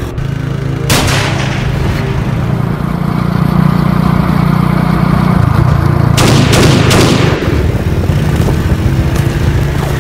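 Action-film soundtrack music with a heavy, steady bass line, cut by a sharp hit about a second in and a loud pistol-shot effect with a ringing tail about six seconds in.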